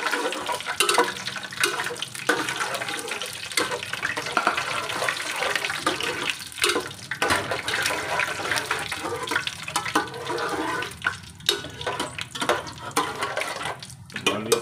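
Whole spices frying in hot oil in an aluminium pot, a continuous sizzle as they brown. A slotted spatula stirs them, scraping and clinking against the pot.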